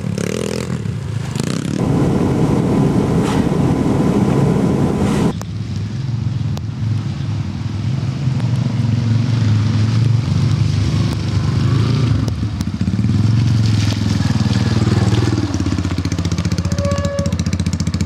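Motoland XR 250 single-cylinder enduro motorcycles running and revving as they ride through mud. About five seconds in the sound cuts to a single bike, its engine note rising and falling as it is ridden and revved.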